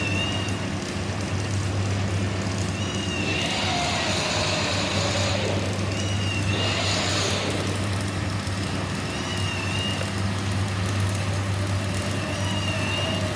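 Arc welding on ducting pipe: the welding machine gives a steady electrical hum, broken by a few hissing bursts of a second or two as the arc is struck on the pipe.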